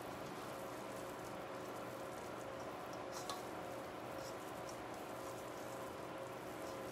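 Steady faint hiss with a faint steady hum, and a light click about three seconds in and another about a second later.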